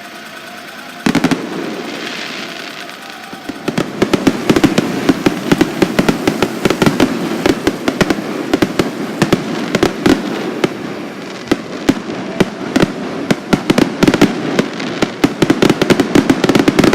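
Fireworks: a single bang about a second in, then from about four seconds on a dense, unbroken run of rapid bangs and crackles.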